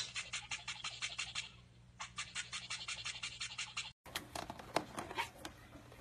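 A toothbrush scrubbing in quick, even scratchy strokes, about seven a second, in two runs. After a cut, a caique's beak makes scattered clicks and taps as it picks at a cord.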